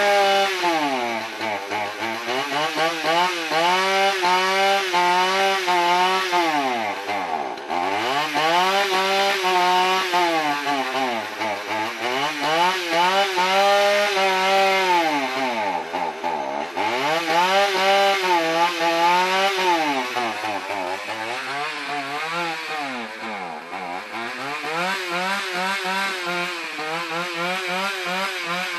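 Two-stroke chainsaw engine running at high revs, its pitch wavering unsteadily and sagging sharply about every eight seconds before climbing back up. This is a saw being run while its starting and carburetor trouble is worked on.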